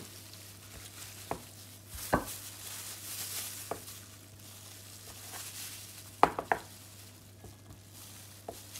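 Chef's knife cutting through a block of cheddar cheese and knocking on the cutting board: scattered sharp knocks, with three in quick succession about six seconds in. A steady low hum runs underneath.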